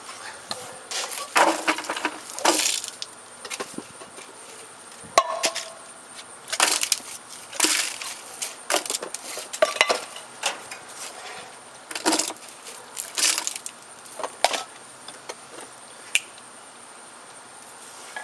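Handfuls of mixed vegetables and noodles thrown at a plastic mop bucket, clattering into it and scattering over the concrete in about ten separate sudden bursts.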